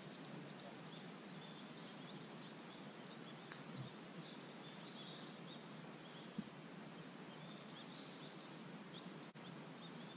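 Quiet outdoor ambience: a steady soft hiss with scattered faint bird chirps, and a single soft tap about six seconds in.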